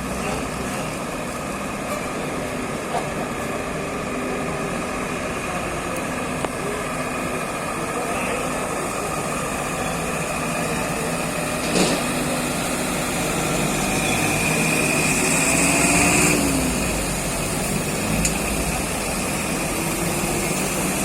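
Street traffic: vehicle engines running over a steady wash of noise. There is one sharp knock about twelve seconds in and a high whine lasting about two seconds a little later.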